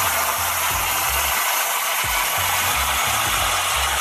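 Bosch AutoCook Pro multicooker venting steam through its pressure-release valve: a loud, steady hiss as the pressure is let out at the end of pressure cooking.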